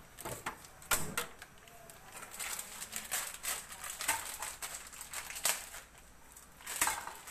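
Scattered light clicks and knocks of cookware and utensils being handled at a stove, with a sharper knock about a second in.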